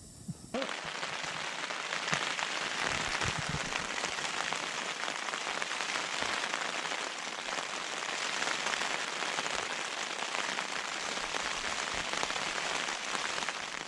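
Heavy rain falling on a Hilleberg Soulo tent's flysheet: a steady, dense hiss of drops that starts suddenly about half a second in.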